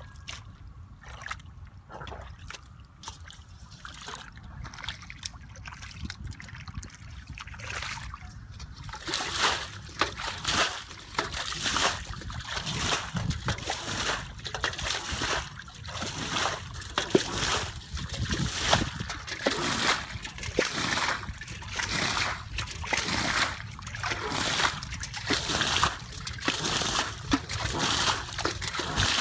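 Hands and legs sloshing and splashing through shallow muddy water while groping for fish. The splashing is light and scattered at first, then becomes louder and nearly continuous after about nine seconds.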